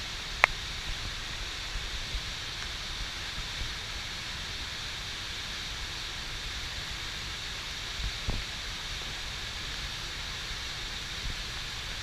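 Steady rushing hiss of falling water, with a low rumble underneath. A sharp click about half a second in and a dull knock about eight seconds in.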